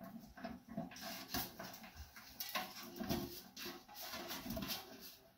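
Faint, scattered clicks and rubbing as a rubber washer is worked onto a bolt inside an aluminium stock pot.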